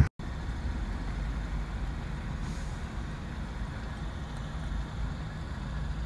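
Steady low rumble of a van heard from inside the cab, after a brief dropout at the very start.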